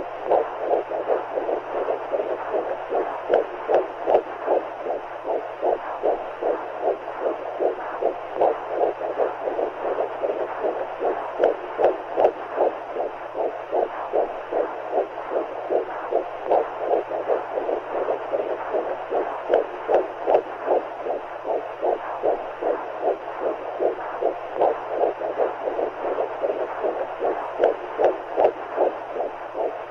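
Womb sound for soothing a baby: a rapid, even heartbeat pulsing over a muffled whooshing noise, with a faint low hum beneath, meant to mix the baby's and the mother's heartbeats with the sound of amniotic fluid.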